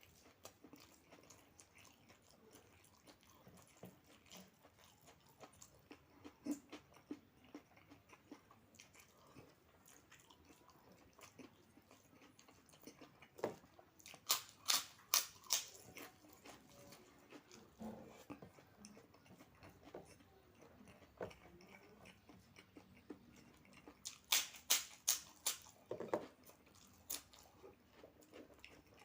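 Close-up eating sounds: soft chewing with two runs of four or five sharp crunches, about halfway through and again near the end, from biting into crisp crackers (kerupuk).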